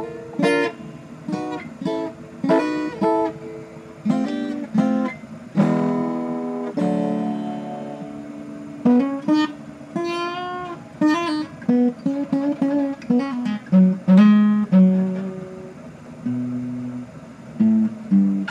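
Harley Benton HBD-120CE black cutaway acoustic guitar on corroded strings being played: strummed chords for the first several seconds, then picked single-note phrases, with a few notes bent in pitch about ten seconds in.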